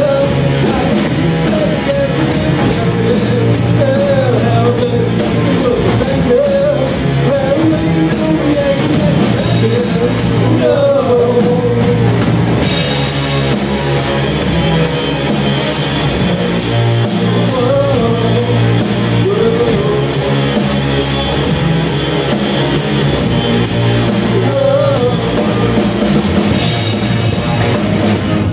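Live rock band playing: drum kit and electric guitars, loud and continuous, with the cymbals and high end growing brighter about halfway through.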